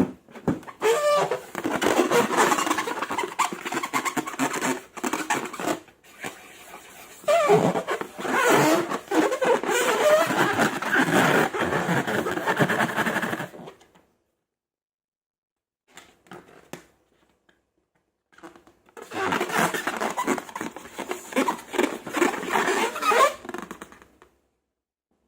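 Slime and long rubber balloons being worked by hand, with squishing and rubbery squeaks, in two long stretches separated by a pause of a few seconds.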